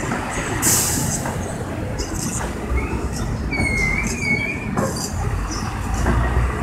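Street traffic: a steady rumble of vehicle engines, with a short hiss about half a second in and a wavering high squeal near the middle.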